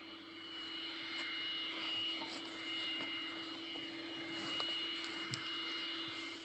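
Jet airliner engines running, a steady whine over an even rushing hum, heard from inside the passenger cabin.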